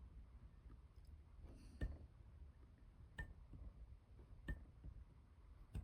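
Near silence with four faint, sharp taps of a ruler and marking tool against the wooden siding of an HO-scale model wall as board joints are marked, about one every second and a half.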